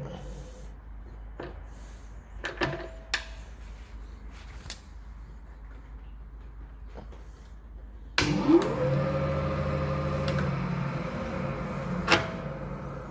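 Precision lathe: a few sharp clicks of the controls, then about eight seconds in the motor starts with a quick rising whine that settles into a steady running hum. Another click comes near the end.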